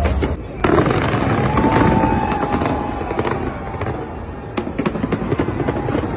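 Fireworks display: a dense barrage of sharp bangs and crackles, with a sudden loud burst about half a second in.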